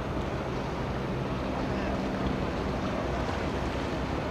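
Steady wind rumble on the microphone over a low, steady engine hum from boats on the water, with faint distant voices.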